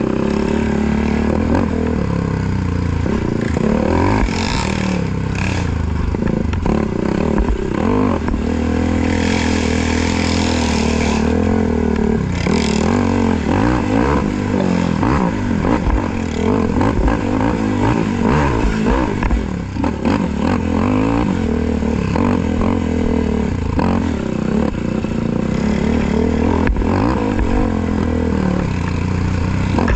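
Racing ATV engine running hard, its revs rising and falling over and over with the throttle.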